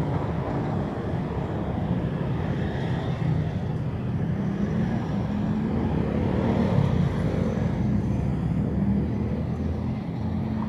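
City street traffic: motorbikes and cars driving past, a steady hum of engines and tyres. It swells as a motorbike passes close about six to seven seconds in.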